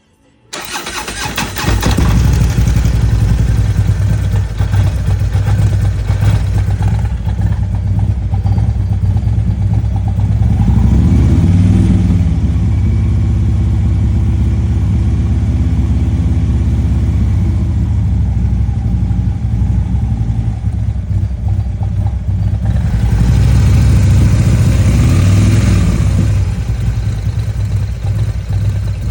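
Harley-Davidson Twin Cam 117 V-twin engine starting warm about half a second in, then idling, revved up briefly twice: once around the middle and once near the end. It runs with the lifter noise and lack of oil pressure that the owner is chasing.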